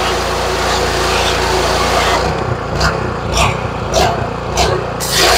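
DeWalt 3400 PSI gas pressure washer running with its spray wand hissing at full pressure. About two seconds in the spray stops and the engine keeps running alone, with four sharp ticks about half a second apart. The spray starts again near the end.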